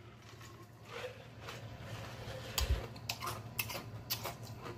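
A man drinking from a large mug close to the microphone: quiet sips and swallows, with a low thump about two and a half seconds in and a few short mouth clicks after it.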